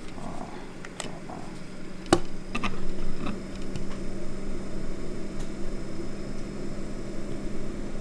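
VEVOR diesel air heater's blower fan running in fan-only mode, without combustion, at the stock controller's level 2 setting: a steady whirring hum. A sharp click comes about two seconds in, after which the fan sounds louder.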